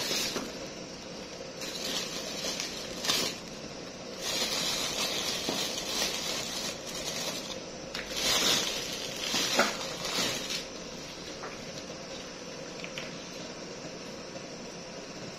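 Clear plastic bag crinkling and rustling as hands dig through it, in several bursts over the first ten seconds or so, then dying down to a faint steady hiss.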